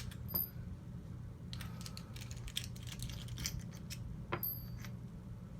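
Scattered light metallic clicks and clinks of a GSG AK-47 .22 LR rifle's parts and tools being handled during disassembly, over a steady low hum.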